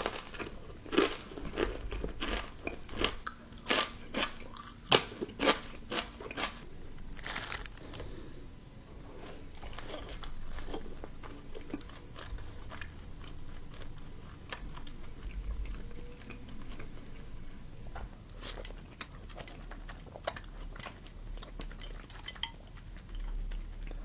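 Close-miked eating of breaded boneless fried chicken: a quick run of crisp crunching bites through the first seven seconds, then quieter, steady chewing with an occasional sharp crunch.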